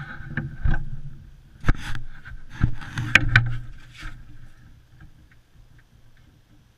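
Handling noise: a fabric jacket rustling, with several sharp knocks and scrapes, busiest in the first four seconds and then quieter.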